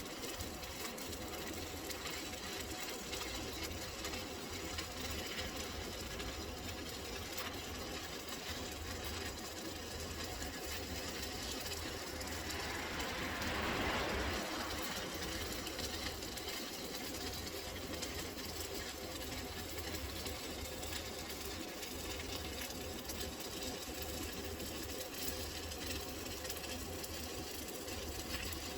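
A welding arc on a water heater, crackling and buzzing steadily during the first pass, with a brief louder swell about halfway through.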